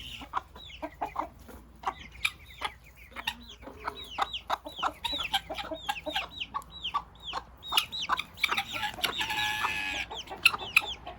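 Backyard chickens calling: many short, high chirps that drop in pitch, mixed with clucks and quick sharp taps, and a longer, louder harsh call from about eight and a half to ten seconds in.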